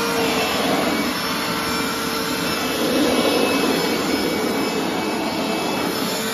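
Hoover SteamVac SpinScrub carpet cleaner's suction motor running loudly and steadily, its hose sucking up the wet rug. The noise swells briefly about three seconds in.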